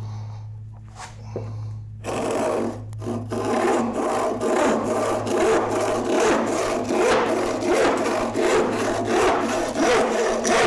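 Old Disston crosscut hand saw cutting through a board in repeated back-and-forth strokes, starting about two seconds in. A low steady hum runs underneath.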